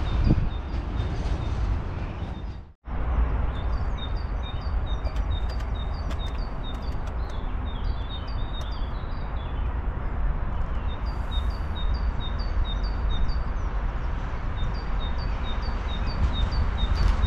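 A small songbird calling in runs of short, high, evenly repeated chirps, about two or three a second with brief pauses, over a steady low rumble. The chirping starts after a sudden cut about three seconds in; before the cut, a low rumble fades away.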